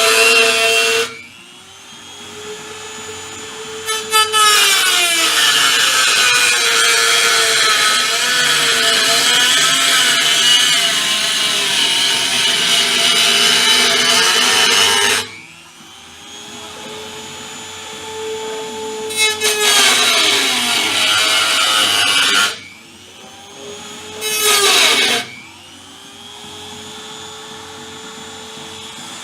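High-speed power tool grinding or cutting sheet metal in long loud spells, about eleven seconds for the longest. Between spells it spins freely with a steady whine, and the pitch slides down as each spell ends.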